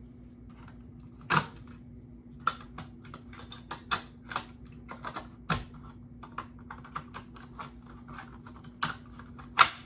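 Irregular sharp plastic clicks and taps from an SA500 smoke alarm being handled, several a second at times, a few louder knocks among them.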